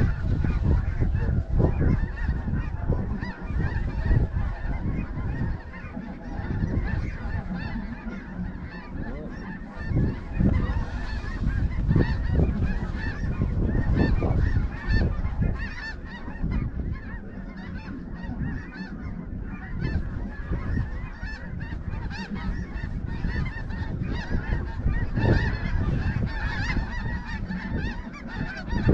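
A large flock of snow geese calling: a dense, continuous chorus of many overlapping honks.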